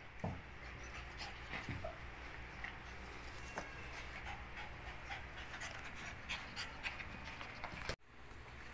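Belgian shepherd puppy panting, with scattered short clicks and scuffs as the puppies move around close by.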